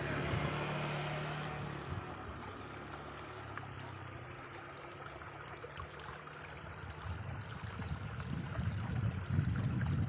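Outdoor ambience: a steady rushing noise, with a low rumble that fades over the first two seconds and returns, louder and uneven, over the last three.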